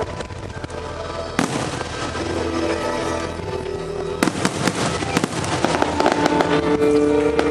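Aerial fireworks shells bursting over music, with a sharp bang about a second and a half in, a louder one just past the middle, and then dense crackling.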